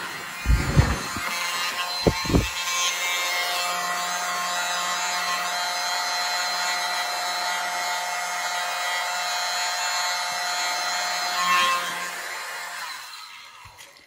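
Small handheld hairdryer running on low, a steady motor whine with a rush of air as it blows wet acrylic paint out into a bloom. It winds down and stops near the end. A few low thumps come in the first couple of seconds.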